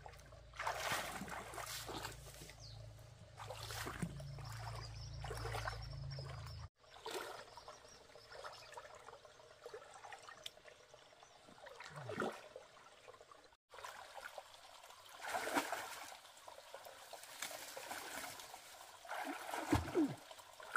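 Shallow stream water splashing and sloshing in several bursts as a person wades through it and scoops with their hands, over a steady trickle of flowing water.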